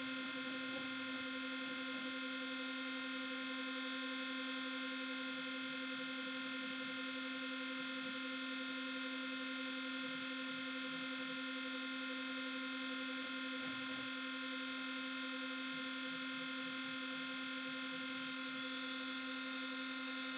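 Spindle motor of a homemade CNC milling machine running free at constant speed, a steady whine. The cutter is spinning clear of the brass workpiece, not yet cutting.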